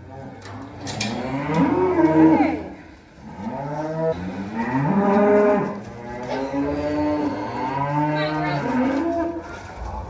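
Beef cattle mooing: three long calls, one after another, through the whole stretch.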